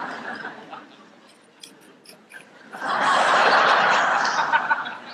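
Audience laughter: a short ripple at the start, then a louder, fuller burst of laughing from about three seconds in. Between the two, a few crisp clicks as holes are cut into the carrot.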